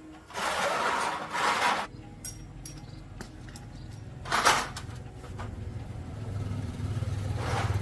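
Motorcycle engine being started: a burst of starting noise for about a second and a half, then the engine catches and settles into a steady low idle that slowly grows louder.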